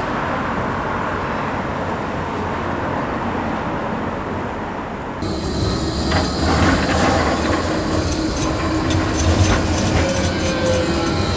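Vintage electric tram running on street track. A steady rumble for the first five seconds, then an abrupt change to clattering wheels with whining and squealing tones that fall in pitch near the end.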